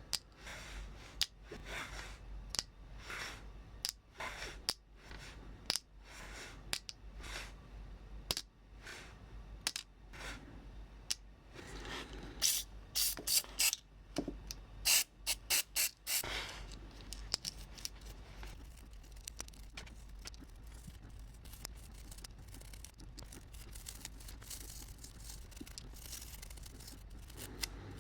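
Hands working on a small model train's parts: irregular sharp clicks and light scraping, with a dense flurry of louder clicks about halfway through, over a low steady hum.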